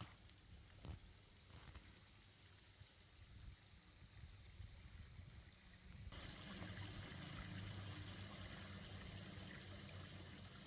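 Faint outdoor ambience with a small woodland stream trickling. The background noise grows louder about six seconds in.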